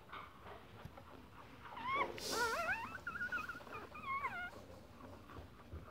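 Three-day-old puppies squealing and whimpering: high, wavering cries, more than one at once, for about two and a half seconds in the middle.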